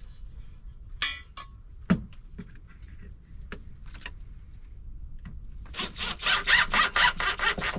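Handsaw cutting a wooden board: a quick run of even back-and-forth strokes, about six a second, lasting about two seconds near the end, after a few scattered knocks of wood and tools.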